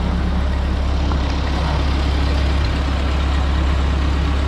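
Ford 8N tractor's four-cylinder flathead engine idling steadily, freshly started cold and warming up.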